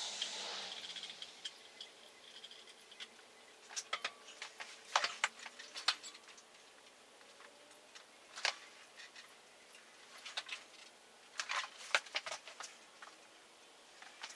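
Scattered light clicks, taps and rattles of small metal hardware and tools being handled, with a short hiss at the start.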